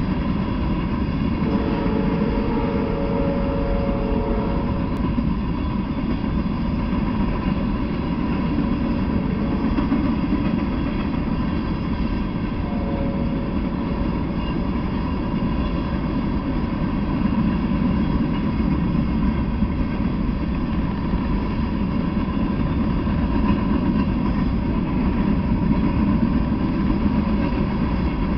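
Freight train of covered hopper cars rolling past, a steady rumble of wheels on the rails. A faint higher tone sounds over it twice, from about a second and a half to five seconds in and again briefly near the middle.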